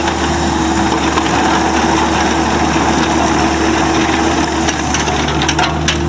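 Bobcat E26 mini excavator's 24.8 HP Kubota diesel running steadily while the machine travels and turns on its rubber tracks. A few sharp clicks and clanks come in near the end.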